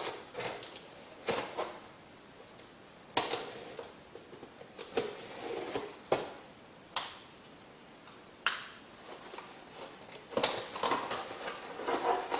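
A cardboard box being opened and its contents handled by hand: scattered knocks, taps and clicks a second or two apart, with busier rustling of packaging near the end.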